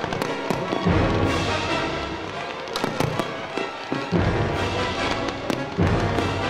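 Fireworks display: aerial shells bursting with deep booms about 1, 4 and 6 seconds in and sharp crackling pops in between, over music.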